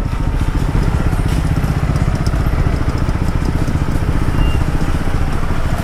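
Triumph 400X's single-cylinder engine running steadily with a rapid, even pulsing beat.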